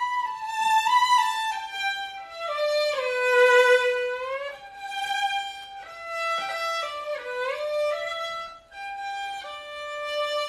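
Background music: a slow solo violin melody in long held notes, sliding between pitches, with a brief break a little before the end.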